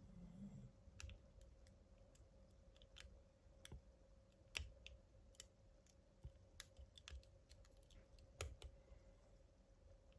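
Faint, irregular small metal clicks of a lock pick working the pins of a Master Lock 1921 padlock, whose pin stack includes spool pins.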